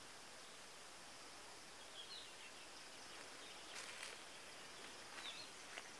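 Faint outdoor quiet with a few short bird chirps, and a brief rustle a little before four seconds in.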